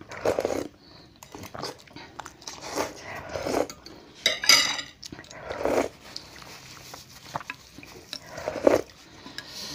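Close-miked slurping and chewing of noodle soup, five or six loud slurps a second or two apart, one near the middle sharper and hissier. Spoons and forks clink lightly against ceramic bowls between them.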